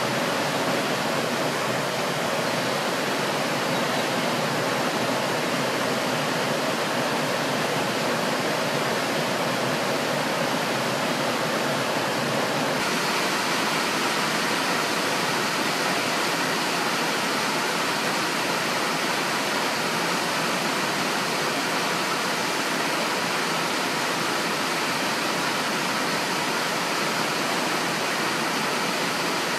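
Steady rushing of river water. About thirteen seconds in, the sound cuts to a brighter, steady wash of rain falling on trees and a roof.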